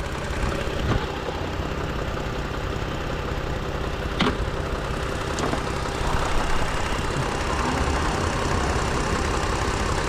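2018 Toyota Sienna's 3.5-litre V6 idling steadily, running again now that a loose engine ground has been tightened. A sharp click about four seconds in.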